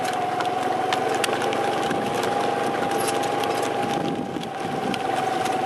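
Motorcycle engine running steadily at low speed alongside a trotting horse cart, with a constant whine over the engine noise that dips briefly about four seconds in. Faint irregular clicks of the horse's hooves on the paved road come through.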